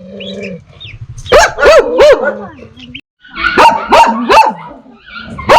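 Dog barking in sharp, loud barks: a quick run of three, then after a brief break another cluster of barks and a single one near the end.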